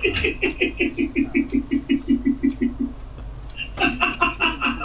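A man laughing hard in quick repeated 'ha' pulses, about seven a second, that trail off a little before the middle, then a fresh burst of laughter starting up again.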